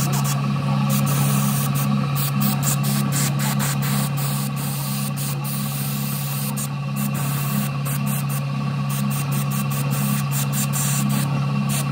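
Small spray-paint machine running: a steady motor hum from its compressor, with the hiss of paint being sprayed that comes and goes.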